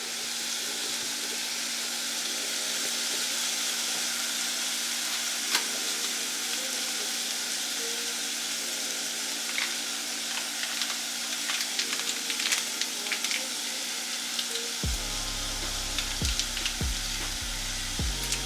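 Ground pork mixture sizzling steadily in a pot as it is stirred, with a utensil clicking against the pot now and then from about five seconds in.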